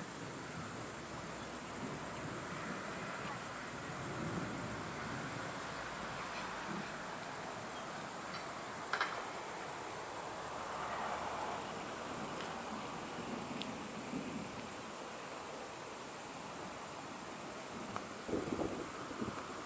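Crickets chirring in a continuous, steady high-pitched buzz, with a faint click about halfway through and a short low thump near the end.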